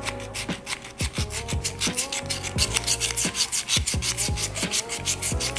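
A small handheld sharpener rubbed in quick, even strokes, about six a second, over the flat face of a bypass hand pruner's steel blade, taking off a burr raised by sharpening.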